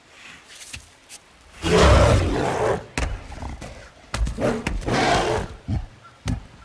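King Kong, the film's giant gorilla, gives two loud calls, about a second long each: one a couple of seconds in and another just after four seconds. Short, sharp thuds fall between and after them.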